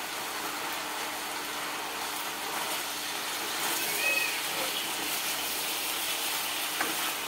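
Sliced brinjal and potatoes frying in oil in a pan, a steady sizzling hiss, as they are turned with a spatula.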